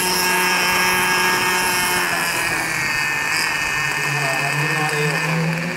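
O.S. MAX-46FX-H two-stroke glow engine and rotors of a Hirobo Lama SA-315B scale RC helicopter, hovering low and then settling onto its skids about two seconds in, after which the engine note drops a little and runs on steadily.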